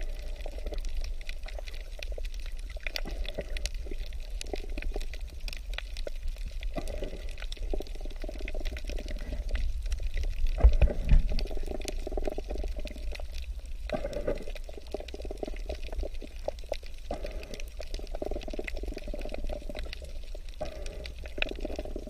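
Underwater sound on a coral reef: water rushing and gurgling around the camera in uneven surges, with many scattered crackling clicks throughout. A louder low surge comes about halfway through.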